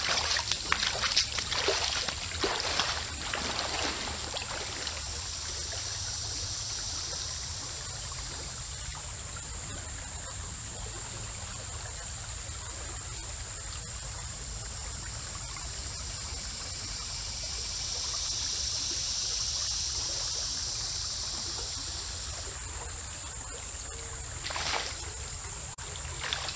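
Shallow creek water trickling steadily, with sloshing splashes in the first few seconds as a wader moves through the water, and one short splash about three-quarters of the way in. A steady high-pitched whine runs under it all.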